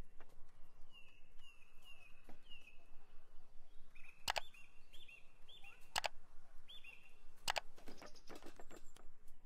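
A songbird calling over and over in short chirps that dip in pitch, with a few sharp taps and soft rubbing as hands sprinkle salt and work seasoning into raw steaks on a wooden board.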